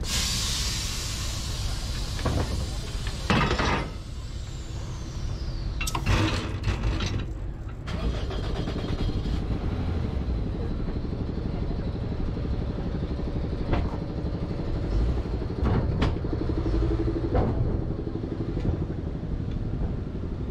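Car engine running as the car pulls off the auto ferry, a steady low rumble with a few sharp knocks as it rolls over the steel ramp.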